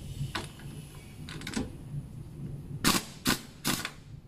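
Pneumatic impact wrench on a strut mount's top nut, fired in three short blips about 0.4 s apart, after a couple of lighter clicks. This is the wrench hammering the front strut's top nut loose.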